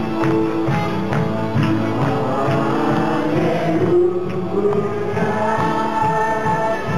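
Congregational worship music: many voices singing a gospel song together over live music with a steady beat.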